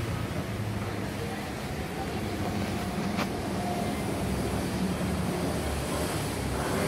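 Steady low rumble of city street traffic, with a wavering engine hum underneath, and a single sharp click about three seconds in.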